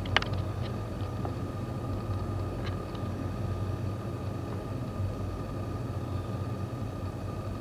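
Steady low electrical or mechanical room hum with a thin high tone running through it, and a few faint clicks, the sharpest just after the start.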